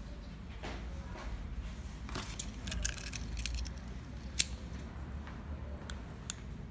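Light clicks and rustling from hands handling the headlight's wiring, clips and a small remote control, with one sharper click about four seconds in, over a steady low hum.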